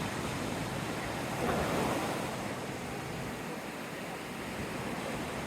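Surf washing on the beach, a steady wash of waves with wind buffeting the microphone; the wash swells briefly about a second and a half in.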